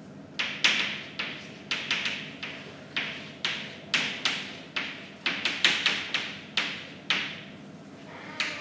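Chalk writing on a chalkboard: a quick run of short taps and scratches, about two or three a second, with a short pause near the end.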